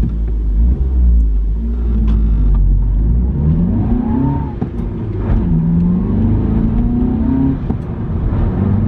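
VW Polo GTI's 1.8-litre turbocharged four-cylinder engine accelerating, its pitch climbing through the revs, dropping at a gear change about four and a half seconds in, then climbing again. There is a heavy low rumble over the first three seconds.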